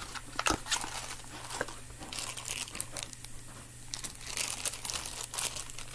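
Clear plastic packaging around a wireless mouse crinkling and crackling as it is handled and opened, in irregular bursts.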